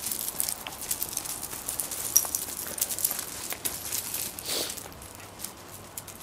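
Loose slate chippings crunching and clicking under feet, a run of small crunches with a louder scuff about four and a half seconds in.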